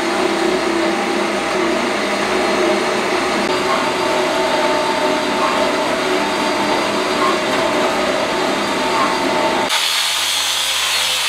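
Metal-cutting band saw running its blade through a red steel pipe: a steady machine sound with several held tones. Near the end it changes to an angle grinder on steel, a harsher, brighter hiss.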